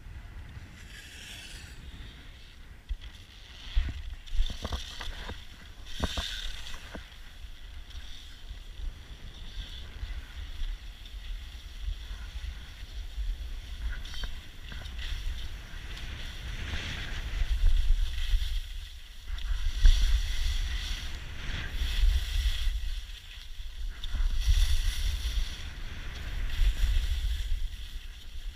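Skis hissing and scraping over groomed snow in swells that rise and fall with each turn, louder as speed builds in the second half, with wind buffeting the microphone. A few sharp knocks sound about four to six seconds in.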